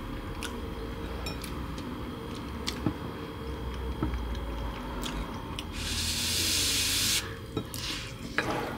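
Metal spoon clinking and scraping against a bowl of rice while eating: a few scattered light clicks over steady low room noise. About six seconds in, a steady hiss lasts about a second and a half.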